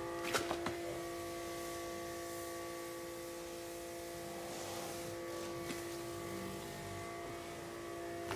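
A steady machine hum, one even pitch with overtones, from equipment running in the workshop, with a few light clicks about half a second in.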